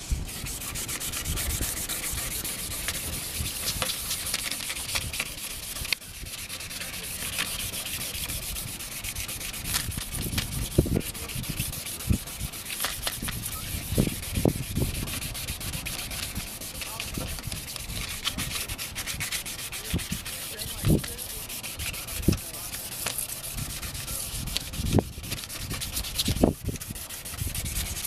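1000-grit sandpaper, folded in half and wetted, rubbed rapidly back and forth by hand over a headlight lens: continuous wet-sanding strokes, with a few brief soft thumps now and then. This is the fine-grit stage of restoring a cloudy headlight, smoothing the lens.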